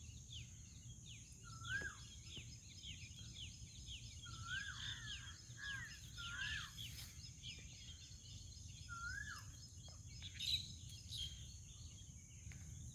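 Several wild birds calling: a rapid string of short falling chirps, with a repeated rising-and-falling call mixed in, over a steady high-pitched drone and a low rumble of outdoor background noise.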